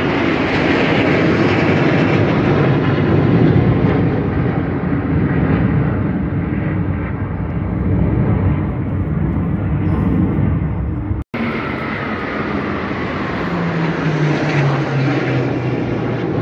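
Jet aircraft flying over in formation: a loud, steady engine rumble with a high whine that slowly falls in pitch. Near the end a low engine hum drops in pitch as a large jet with two smaller jets at its sides passes overhead. The sound cuts out for a split second about eleven seconds in.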